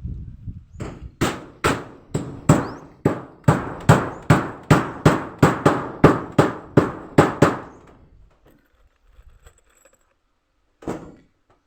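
Hammer blows, a quick run of about seventeen sharp strikes at roughly three a second, then one more single blow near the end, as in nailing during house repair.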